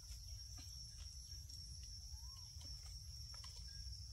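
Forest insects droning steadily at a high pitch over a low rumble, with a few faint ticks and one short rising-and-falling call about two seconds in.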